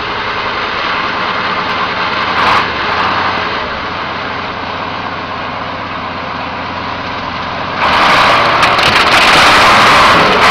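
Military KAMAZ six-wheel truck's V8 diesel engine running under load as the truck drives down into a ditch, towing a GAZ-66. About eight seconds in it gets suddenly louder as the truck pulls through the ditch close by, trailing exhaust smoke.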